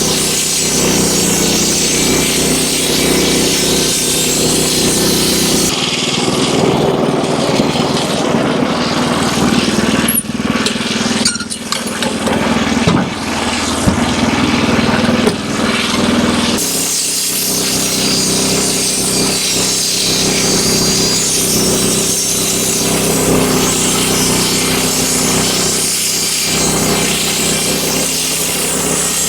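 Wood-Mizer LX25 band sawmill running, its blade sawing through a hemlock beam over the engine's steady hum. The sound changes abruptly about six seconds in, losing its hiss, and returns to the full sawing sound about ten seconds later.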